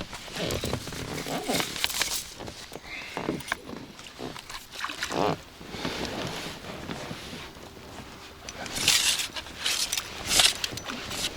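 A hooked carp thrashing and splashing at the surface beside the boat as it is played and brought to the landing net, with irregular knocks and rustles of handling; the strongest splashes come near the end.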